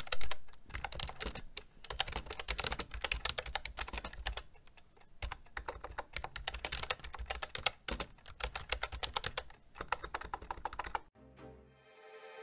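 Rapid computer-keyboard typing sound effect, many fast key clicks with a few brief pauses, laid under on-screen text being typed out. The clicking stops about a second before the end, and a sustained musical chord begins.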